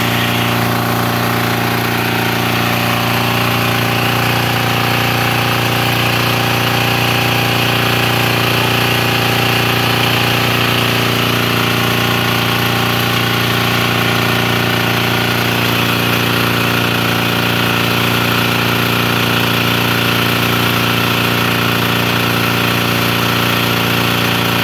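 Small single-cylinder engine running at a steady speed on a torque-and-power test rig, fuelled with oil made from pyrolysed plastic. The pitch and loudness hold even throughout.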